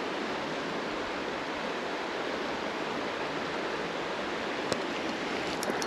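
Creek water rushing steadily, with a couple of faint clicks near the end.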